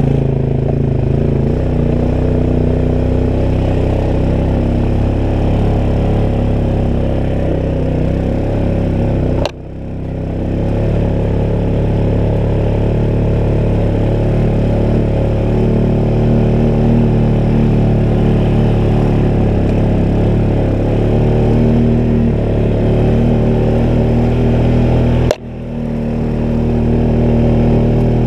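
ATV engine running steadily as the quad climbs a steep, leaf-covered dirt trail. Twice, about a third of the way in and near the end, the sound breaks off suddenly with a click and builds back up over about a second.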